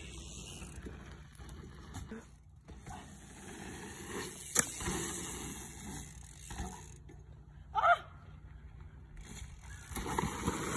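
Mountain bike rolling over a dirt jump track, tyres rumbling on packed dirt. There is a sharp click about four and a half seconds in and a brief rising squeal near eight seconds, and the rolling grows louder near the end as the bike comes down a jump.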